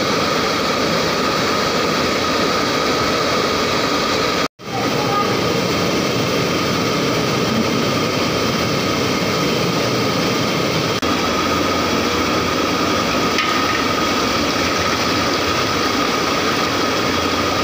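Steady roar of burner flames firing under a row of large aluminium cooking pots, with a faint steady high hum through it. It breaks off for an instant about four and a half seconds in.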